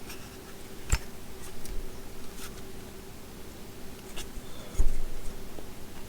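Handling noise from a Milwaukee M18 Fuel oscillating multi-tool as its blade-clamp lever and blade are worked by hand: a few sharp plastic clicks and knocks, the loudest about five seconds in, over a faint steady hum.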